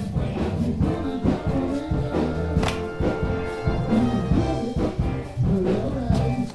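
Live band music from a rock band rehearsing in the basement below, bass-heavy, with a steady run of notes and beats.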